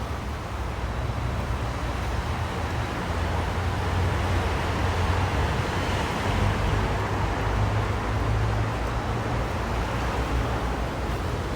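Steady rushing noise over a low rumble, growing louder in the middle and easing off again near the end.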